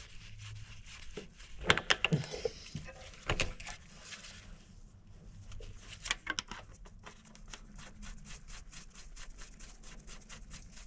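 Small clicks and knocks of hands working a fitting and connector on a tractor engine, with a few sharper clicks early on and a cluster about six seconds in, followed by a fast run of light ticks lasting several seconds.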